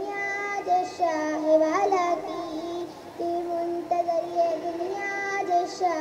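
A child singing a naat, an Urdu devotional poem in praise of the Prophet, in a single voice that holds long notes and links them with short ornamented runs.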